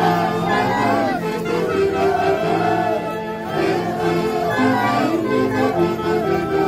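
Traditional dance music played by a band: a wavering melody over several instruments holding tones in harmony, with crowd voices in the background.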